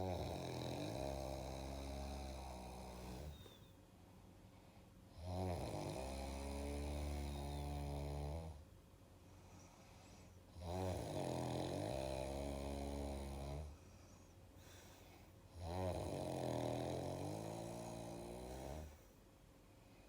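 A sleeping couple snoring loudly: four long snores, one starting about every five seconds, each lasting around three seconds with quieter breathing gaps between.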